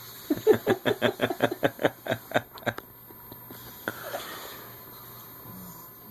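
Sleeping dog giving a fast run of short nasal breaths, about six a second, for roughly two and a half seconds, then one softer breath near the end.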